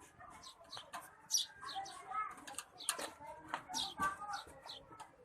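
Screwdriver and hands working on a desktop PC case to take out the power supply: short metallic clicks and scrapes. Birds chirp in the background.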